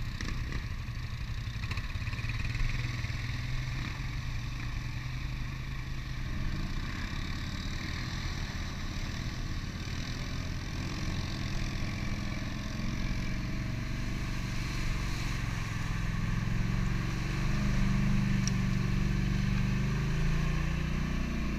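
ATV engine running as the quad rides a trail, its pitch rising and falling with the throttle and getting a little louder in the last few seconds.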